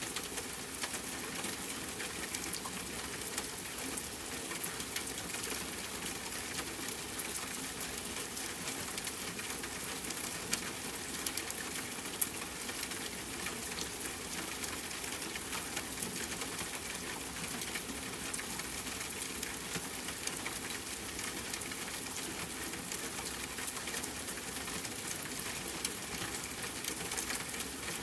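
Steady rain falling, a dense even patter of drops with fine ticks and one sharper drip about twelve seconds in.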